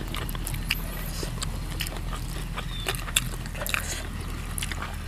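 Two people chewing food close to the microphone: a run of short, crisp mouth smacks and crunches over a steady low hum.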